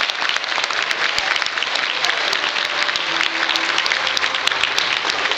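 Audience clapping steadily, many hands at once.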